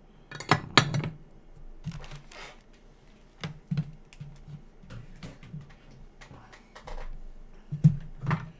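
Light clicks and knocks of small hard tools being handled on a workbench, a handful of separate taps, loudest near the start and again near the end.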